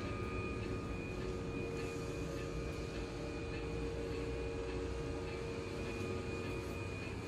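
Steady hum of a stopped electric train car's onboard equipment, heard inside the passenger car. It is a constant drone with a fixed whine over a low rumble, with no change in pitch.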